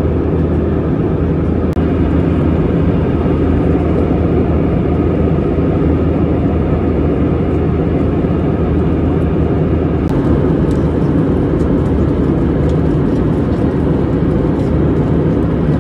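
Steady engine and airflow noise inside the cabin of an Airbus A320-200 airliner, with a low hum beneath it. A few faint light ticks or rattles come in from about ten seconds in.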